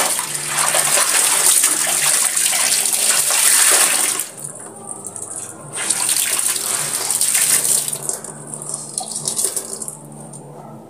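Water splashing and sloshing as clothes are rinsed and wrung by hand in plastic tubs. It comes in loud stretches that fall away for a couple of seconds about four seconds in and again near the end.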